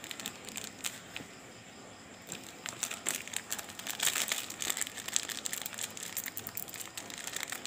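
Crinkling and rustling of a plastic bait packet being handled and opened. Quieter handling at first, then a dense run of fast crackles from a couple of seconds in.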